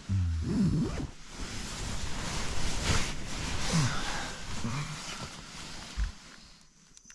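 A person waking in a sleeping bag: a short low groan, then several seconds of nylon fabric rustling as he moves, with a few more small vocal sounds.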